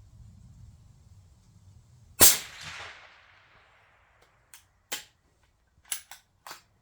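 A single rifle shot about two seconds in, echoing away over a second or so, followed by several short sharp metallic clicks, typical of the rifle's bolt being cycled to chamber the next round.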